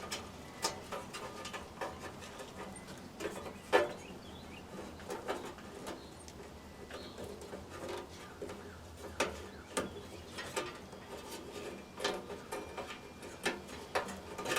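Scattered light clicks and knocks of a nut being worked off the old piezo igniter's mount on a gas grill, with the sharpest knock about four seconds in and more toward the end.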